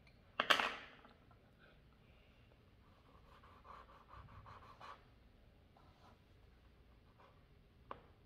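Coloured pencil scratching softly on paper in short strokes, with a short loud burst of noise about half a second in and a sharp click near the end.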